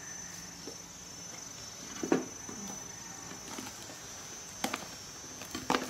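A plastic tub, spoon and dishes being handled on a table: a few sharp knocks and clinks, one about two seconds in and two near the end, over a faint steady high whine.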